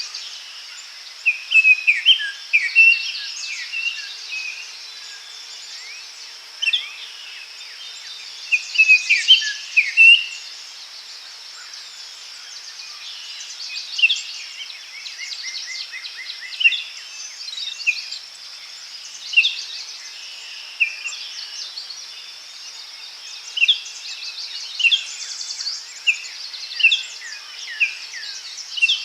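Forest ambience: several birds giving short chirps and calls, with a quick run of repeated notes midway, over a steady high drone of insects.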